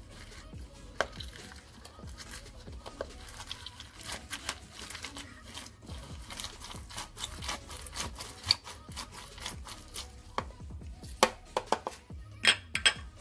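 A lemon half being twisted and pressed on a plastic citrus juicer, giving irregular scraping and clicking, with a quick run of louder knocks near the end.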